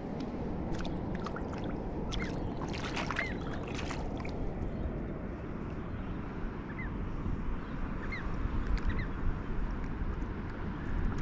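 Shallow water sloshing and splashing around bare feet wading across a sandy flat, with a few sharp splashes in the first four seconds.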